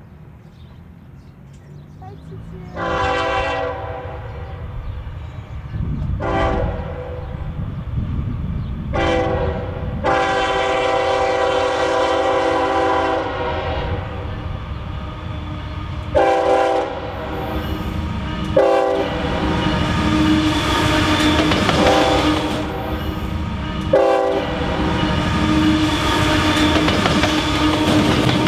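Freight locomotive's multi-chime air horn blowing a series of blasts: a long one near the start, a short one, a long held blast about nine seconds in, then several short toots. Under it the diesel locomotive and its wheels on the rails run louder and steady as the train passes in the second half.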